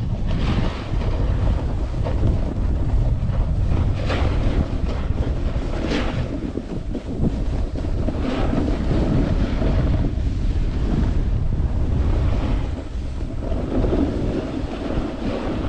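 Wind buffeting the microphone of a camera worn by a moving skier, a loud, constant low rumble, with skis hissing and scraping over packed snow, strongest on a few turns.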